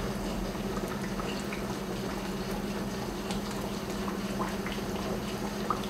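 Salt cod pieces poaching in olive oil in a frying pan, the oil bubbling softly with scattered small pops and crackles, over a steady low hum. This is the gentle half-cooking stage of bacalao al pil pil.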